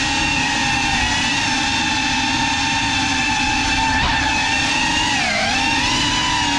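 GEPRC CineLog35 FPV quadcopter's brushless motors and propellers whining steadily in flight, heard through the onboard GoPro's microphone. About five seconds in the pitch dips and climbs back as the throttle is eased off and opened again.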